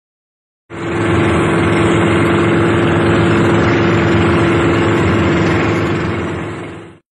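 Inboard engine of a motorized outrigger boat (bangka) running steadily under way, holding one constant pitch. It starts abruptly under a second in and cuts off just before the end.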